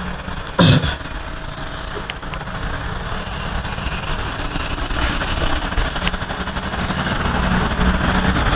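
Cloth eraser rubbing across a chalkboard in long wiping strokes, over a steady low rumble. A single sharp knock about a second in is the loudest moment.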